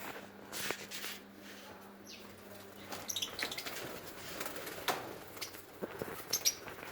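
Lovebirds making short, high chirps in quick clusters, with rustling and wing-fluttering sounds between them.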